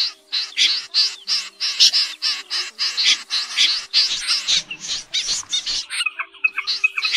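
Recorded snipe calls used as a trapping lure: harsh rasping calls repeated about three times a second, changing about six seconds in to a quicker series of short, clipped high notes.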